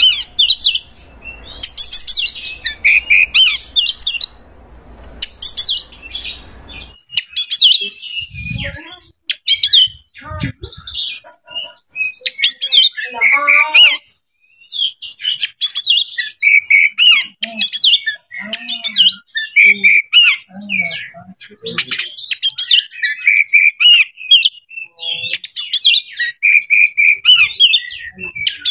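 Oriental magpie-robin (kacer) singing a loud, varied song of rapid whistles, chirps and trills in repeated bursts.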